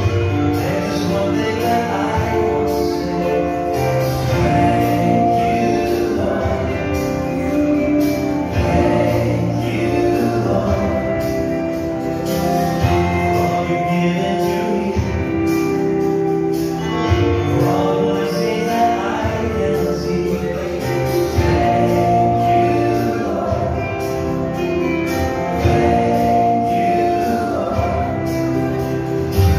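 Background music: a song with singing over steady instrumental accompaniment.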